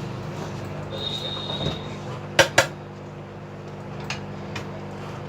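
Two sharp metallic clicks in quick succession about halfway through, a small metal tool knocking on a hard surface at the repair bench, over a steady low electrical hum; a thin high tone sounds for about a second shortly before the clicks.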